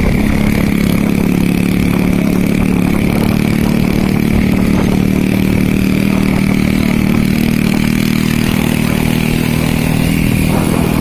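A vehicle engine running steadily at an even pitch, with a constant higher whine over it.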